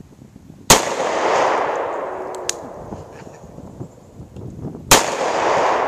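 Two shots from a Taurus Judge revolver, about four seconds apart, each followed by a long echo that dies away over a couple of seconds.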